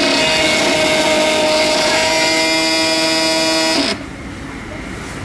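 Mashed potato vending machine running as it dispenses into a cup: a loud, steady machine whine with several pitches. A lower tone joins about two seconds in, and the sound cuts off suddenly at about four seconds, when the dispensing is done.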